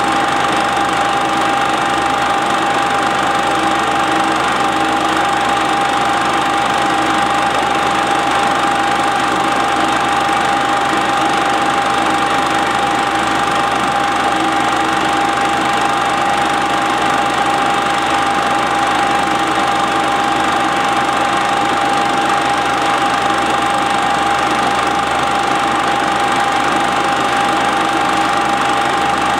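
Standard 8 cine projector running steadily: a continuous mechanical whir with a constant high whine.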